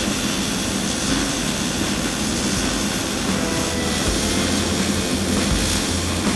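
Miller-Matic 255 MIG welder's arc running steadily as it lays a weld bead on rebar, a continuous even hiss.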